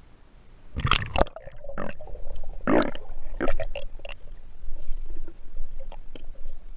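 River water splashing and gurgling around a camera as it goes under the surface, then muffled underwater sound with a low rumble. The loudest gurgly bursts come about a second in and again near three seconds.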